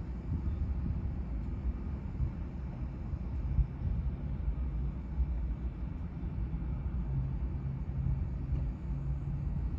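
A steady low rumble with a faint hum in it and no sharp cracks.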